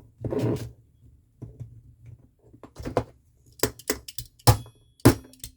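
Sharp metal taps knocking the alignment pin into a Ford Transit Connect hood lock key cylinder, several in quick succession in the second half.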